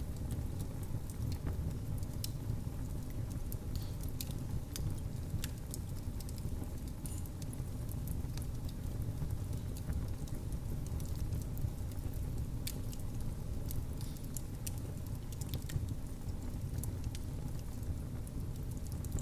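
Wood fire crackling in a fireplace: a steady low rumble of flame with scattered sharp pops and snaps.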